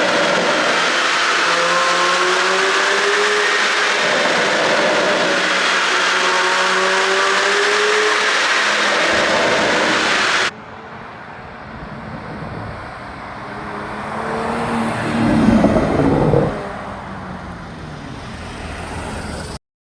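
Porsche Panamera 4 with a pop-and-bang ECU tune, its engine pulling hard with loud rushing noise, pitch climbing and dropping back several times as it works through the gears. About halfway through the sound cuts abruptly to a quieter stretch where the engine swells up to a brief loud rev and falls away again.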